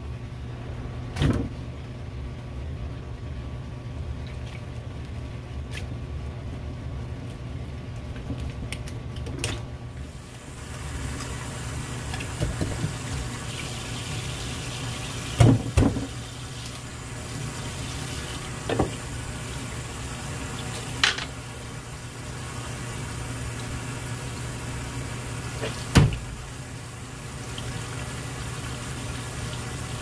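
Water running and splashing over a large flounder on a plastic cutting board, starting about a third of the way in, over a steady low hum. A few sharp knocks are spread through, the loudest about halfway and near the end.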